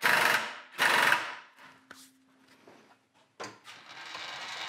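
A thin G9 glass-reinforced melamine sheet sliding and scraping over the steel mill table. There are two short scrapes in the first second and a half, then a quieter, longer scrape near the end.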